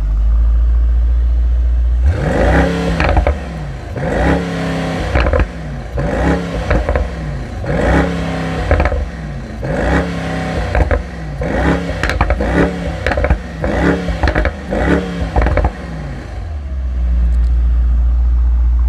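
Mercedes-AMG GT 63 S twin-turbo V8 exhaust idling, then revved in a quick series of throttle blips, each rising and falling in pitch, for about fourteen seconds before settling back to a steady idle.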